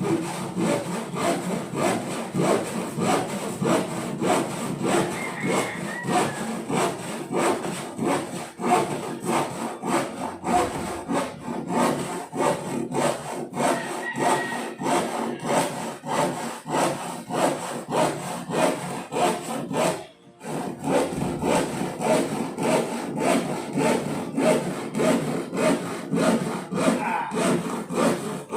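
Handsaw cutting through wood in steady back-and-forth strokes, about two a second, with a brief pause about twenty seconds in.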